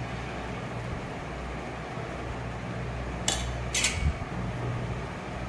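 Perforated stainless steel spatula clinking twice against a steel plate and pan about three seconds in, half a second apart, while scooping soft kesari onto the plate. A low steady hum runs underneath.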